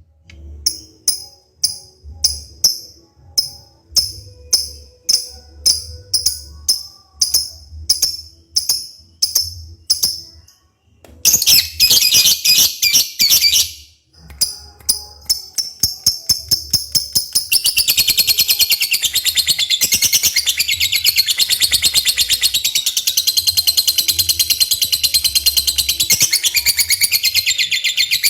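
Lovebird singing hard: shrill chirps repeated about twice a second, a short burst of fast chatter about halfway, then a long unbroken rapid trill through the last ten seconds.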